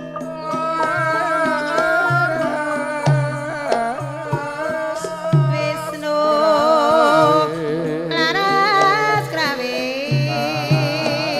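Javanese gamelan music for a ledek (tayub) dance: a kendang hand drum keeps a steady pattern of low strokes under sustained metallophone tones, while a singer holds a high, wavering, ornamented melody.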